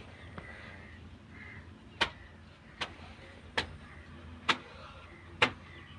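Old horizontal single-cylinder desi diesel engine with a large flywheel, giving a sharp metallic click about once a second over a low steady rumble.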